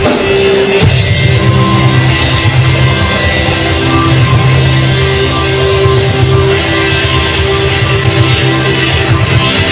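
Live rock band playing on electric guitar, electric bass and drums, with sustained guitar notes over a steady beat.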